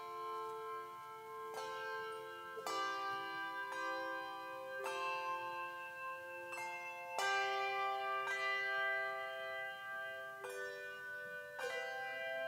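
Handbell choir of four ringers playing a piece: handbells struck in chords about once a second, each chord ringing on and overlapping the next.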